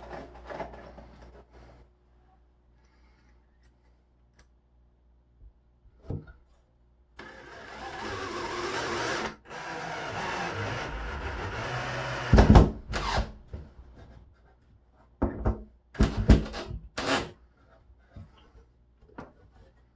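Cordless drill running in two stretches of a few seconds each, likely driving screws to fasten a wooden backer board behind a drywall hole, followed by several sharp knocks and clatter.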